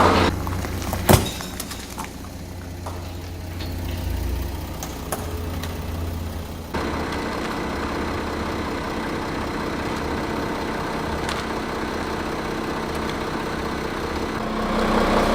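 Car engine idling steadily, with one sharp crack about a second in. The engine sound changes abruptly a little under halfway through.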